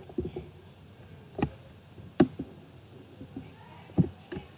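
A computer mouse clicking a few times over quiet room tone. There are sharp single clicks about a second and a half in, just after two seconds (the loudest) and at four seconds.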